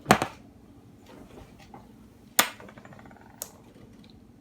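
Hard objects knocking and being set down on a hard surface: a sharp knock right at the start, another about two seconds later that rings briefly, and a lighter tick a second after that.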